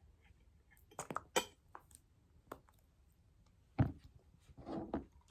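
Tableware being handled: a quick run of clinks about a second in, a few lighter taps, a heavier knock near four seconds, and a brief rubbing noise near the end.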